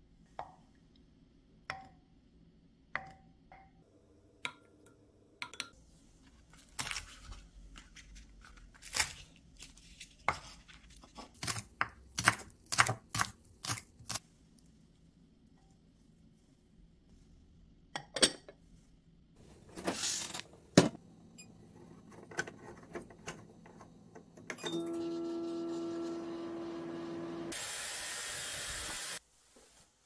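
Glassware and a utensil clinking and tapping in scattered clicks and knocks as egg and soft tofu are mixed in a glass cup. Near the end comes a steady electric hum for a few seconds, cut off by a short, loud rushing hiss.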